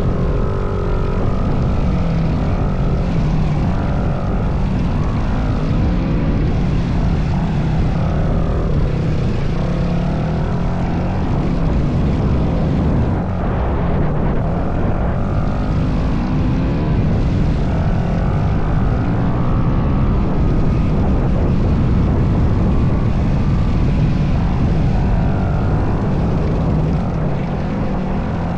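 Kawasaki KX250 dirt bike engine running while riding, its pitch rising and falling over and over as the throttle opens and closes.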